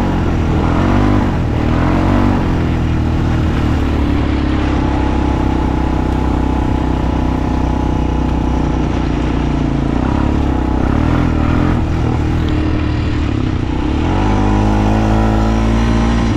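ATV engine running under load while riding, its pitch wavering early, holding steady through the middle, then rising near the end as it revs up.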